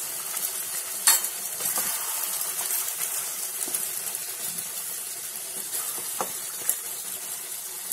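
Chicken pieces and onions sizzling in hot oil in a frying pan while a spatula stirs in tomato paste. A steady hiss is broken by a few sharp clicks of the spatula against the pan, the loudest about a second in.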